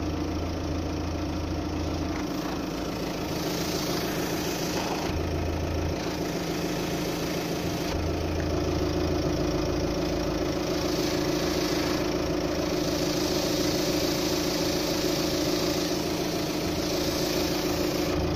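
Car engine idling steadily, with one tailpipe of its exhaust backbox blocked by a rag to push exhaust gas out through the box. The backbox is leaking at its front and back seams.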